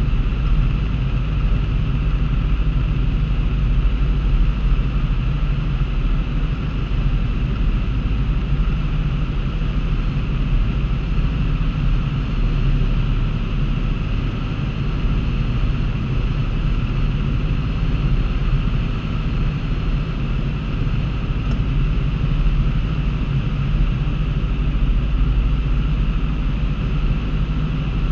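Steady drone of a single-engine piston airplane's engine and propeller in flight, heard inside the cockpit.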